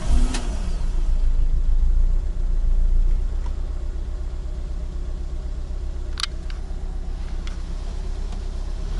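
VW Golf 3's 1.4-litre four-cylinder petrol engine catching just after being started with a brief rev, running a little faster and louder for about three seconds, then settling into a steady idle. A single sharp click sounds about six seconds in.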